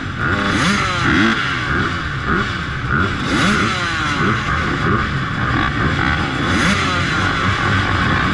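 Several motocross dirt bike engines idling and revving together, their pitches rising and falling over one another.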